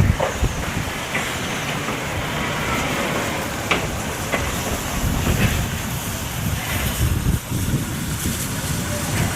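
Narrow-gauge steam locomotive at the depot: a steady low rumble with a few sharp metallic clanks in the middle.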